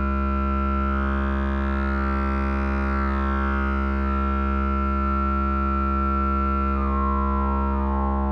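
Behringer TD-3-MO, a TB-303-style analogue bass synthesizer, holding one steady droning note, its filter sweeping up and back down about one to three seconds in, with a shift in the upper tone near the end.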